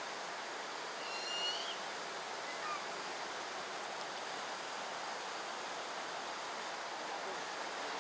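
Buffy fish owl fledgling giving a single high, thin begging call about a second in, rising slightly at its end, as it waits to be fed. A fainter falling note follows about a second later, over a steady background hiss.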